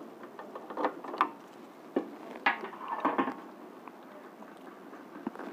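A handful of sharp metallic clicks and clinks, about five within the first three seconds or so, like metal parts being handled, over faint background noise.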